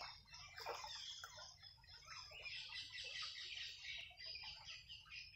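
Birds chirping in a dense chorus of short, overlapping calls, with a few lower calls mixed in.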